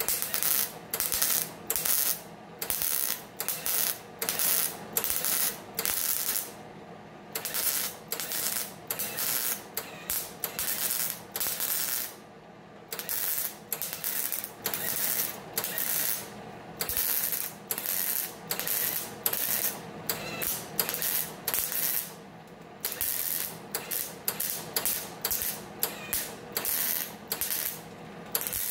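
MIG welder laying short spot and tack welds along a sheet-steel body seam: a run of brief crackling bursts, about one or two a second, with a few short pauses between them.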